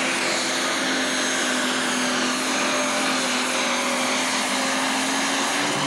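Super stock pulling tractor's turbocharged diesel engine at full throttle, dragging the weight sled. It holds one steady, loud note throughout, and the note shifts only at the very end as the pull stops.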